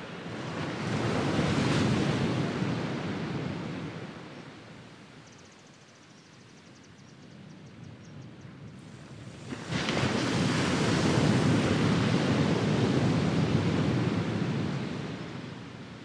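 Sea waves breaking on a sandy beach: one wave swells and washes in over the first few seconds and fades to a lull, then a second wave breaks with a sudden crash about ten seconds in and washes up the sand for several seconds before fading near the end.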